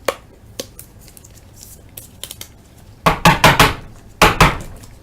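Trading cards and plastic card holders handled on a table: a few light clicks, then two clusters of louder clattering knocks about three and four seconds in.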